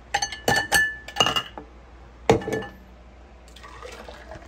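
Plastic blender cup, tumblers and glassware clinking and knocking against each other and the countertop as blended watermelon water is poured into a tumbler. There is a quick run of clinks in the first second and a half, a single sharp knock just after two seconds that is the loudest, then softer handling noises.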